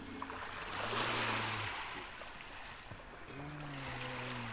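Dromedary camel giving two low, steady moans, a short one about a second in and a longer one near the end: the warning sound of an irritated camel that wants to bite.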